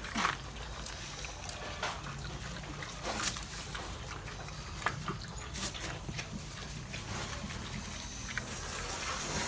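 Pigs eating freshly cut Indigofera leaves and branches: irregular crunching and rustling, with occasional short sharp crackles and low grunts.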